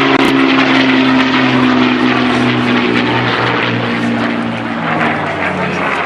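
Piston-engined propeller aircraft flying past: a steady engine drone with a slight drop in pitch as it goes by.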